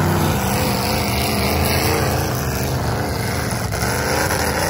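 Several demolition derby cars' engines running loud together, their pitches wavering up and down as they rev, over a heavy low exhaust rumble.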